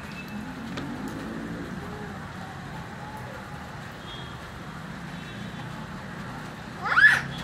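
Steady outdoor background noise, with one short, loud animal call that rises and falls in pitch about seven seconds in.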